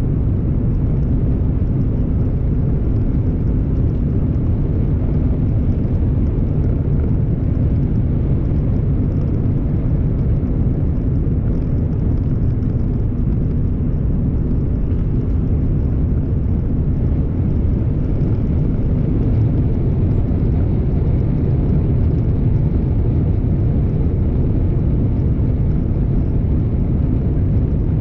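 Car being driven: a steady low rumble of road and engine noise that stays even throughout.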